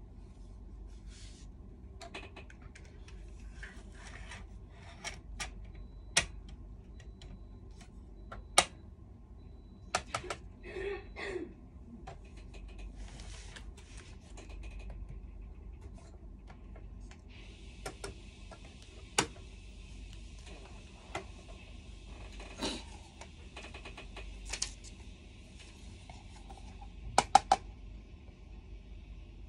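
Scattered sharp clicks, taps and light rustling of hard plastic being handled: a compact photo printer and its parts and packaging, ending in three quick clicks near the end. A faint steady hiss comes in about halfway through.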